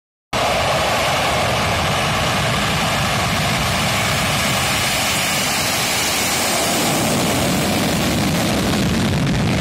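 An F-4 Phantom's twin turbojets running loud and steady on the takeoff roll, with the afterburners lit. The sound cuts in suddenly just after the start.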